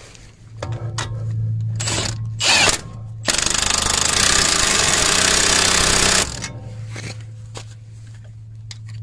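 Impact wrench hammering for about three seconds, running the nut of a front stabilizer link, after a few clinks of tools on metal.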